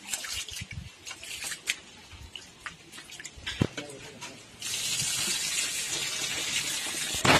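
Hands swishing roasted green gram around in water in a steel bowl, with small splashes and clicks. A little past halfway the wash water starts pouring steadily out of the tilted bowl onto the ground, ending in a sharp knock.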